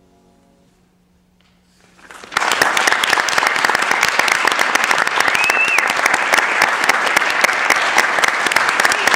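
The last chord on a grand piano dies away, and about two seconds in audience applause breaks out and keeps going steadily.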